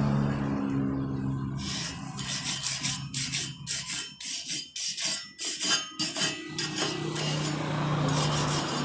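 Rapid back-and-forth scraping strokes on metal, about three a second, like a file or wire brush worked by hand. A steady low hum runs before and after the strokes.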